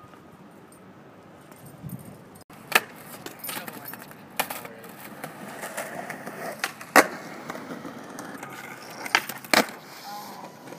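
Skateboard rolling on asphalt, with a few sharp clacks of the board and wheels striking the ground. The loudest comes about two-thirds of the way in, and two more come close together near the end.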